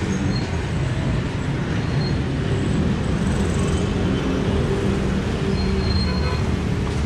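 Busy city street ambience: a steady din of traffic, with vehicle engines running.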